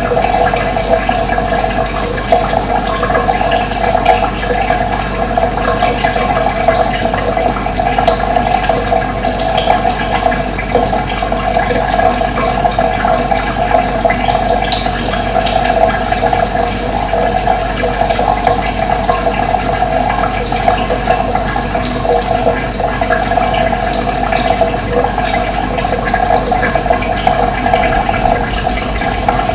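Running water flowing steadily: a continuous, even rush with a strong mid-pitched gurgle and no breaks.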